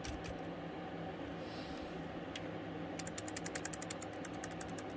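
Low-profile mechanical keyboard keys clicking in a quick run, roughly a dozen keystrokes a second, starting a little past halfway and stopping near the end. A steady low hum runs underneath.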